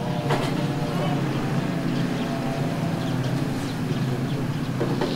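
A steady low hum, with faint voices over it.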